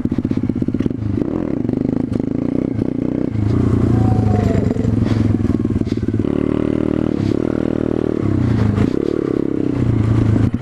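Small single-cylinder pit bike engine being ridden hard, revving up and dropping off repeatedly as the throttle is opened and closed, with some rattling from the bike.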